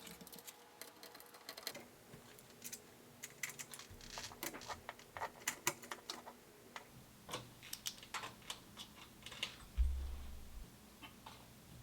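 Irregular light clicks and taps, like small plastic and metal parts being handled, with a brief low thump near the end.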